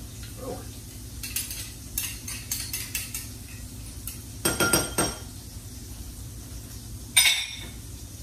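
Metal spoon scraping and tapping against a small glass bowl while mayonnaise is scooped and knocked off into it: light clicks, then a louder run of knocks about halfway. A single sharp, ringing clink comes near the end.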